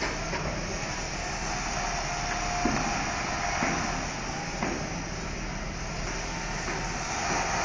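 Building-site background noise: a steady rumble of mixed outdoor noise, with a few faint knocks about a second apart in the middle.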